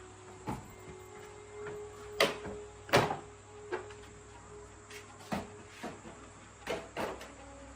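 A series of irregular sharp knocks and clacks of hard objects being handled, about nine in all. The loudest two come a little over two seconds and three seconds in.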